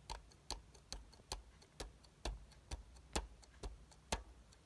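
Light, sharp clicks at a fairly even pace of about two a second.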